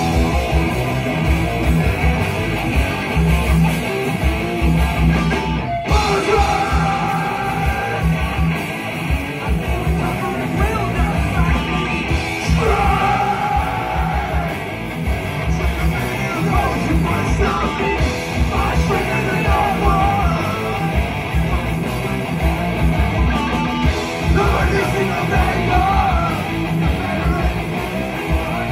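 Live heavy metal band playing: distorted electric guitars, bass and fast drums, with several vocalists yelling into microphones. There is a momentary break in the music about six seconds in, after which the yelled vocals come in.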